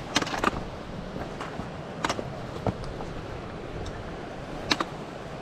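Footsteps on loose rocks as someone picks their way down a steep rocky slope, with a few sharp stone-on-stone knocks, over a steady rushing noise.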